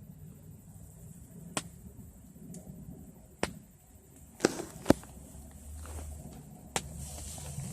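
A handful of sharp, irregular taps and clicks, about five in all, the loudest about five seconds in, over a faint low rumble.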